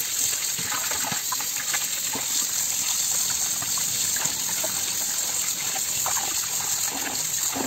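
Tap water running steadily into a water-filled steel basin, splashing as a whole raw chicken is rubbed and rinsed by hand under the stream.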